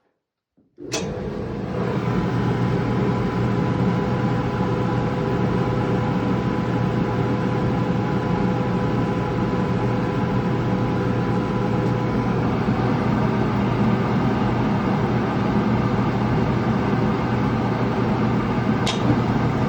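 GE gas dryer starting with a click about a second in, then its motor and tumbling drum running with a steady hum. A short click near the end.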